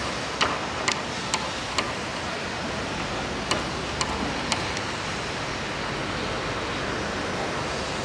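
Diesel-hauled passenger train approaching slowly: a steady broad noise with a run of sharp clicks, four in the first two seconds and three more around the middle.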